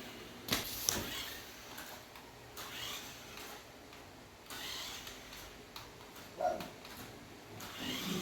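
Toy remote-control car running in short spurts, its small motor whirring on and off several times, with a couple of sharp clicks just under a second in.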